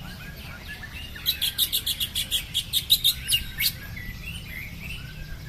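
Caged cucak ijo (green leafbird) singing: a loud rapid run of about a dozen sharp, high notes starting about a second in and stopping near four seconds. Other birds chirp more quietly around it over a steady low rumble.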